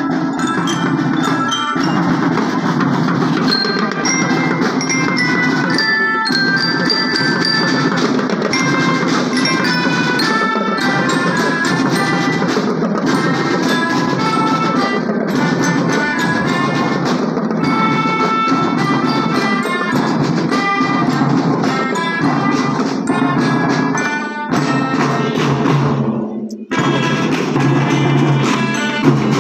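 School marching drum band playing a tune together: bell lyres and melodicas carry the melody over snare drums, with a brief break near the end.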